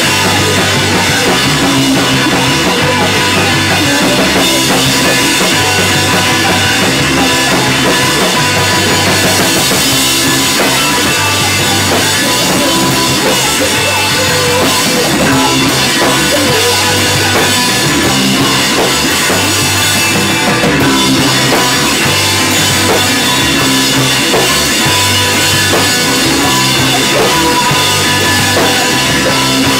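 Punk rock band playing live in a basement rehearsal: electric guitars, bass and a drum kit at a loud, steady level, with a singer shouting vocals into the microphone.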